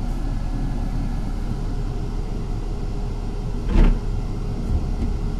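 Steady low rumble of a city bus in motion, heard from inside the cabin. A single loud clunk comes about two-thirds of the way through, with a lighter knock just after.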